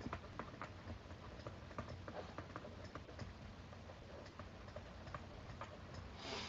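Faint, irregular ticks, a few a second, of a pen stylus tapping and sliding on a tablet screen during handwriting. A short hiss comes near the end.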